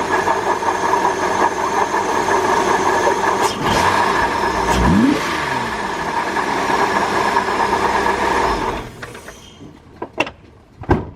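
Holden Ecotech 3.8 V6 running with a knocking from the water pump, typical of worn water-pump bearings. The engine is revved once about five seconds in, rising in pitch. The running noise cuts off about nine seconds in, followed by a couple of sharp clicks.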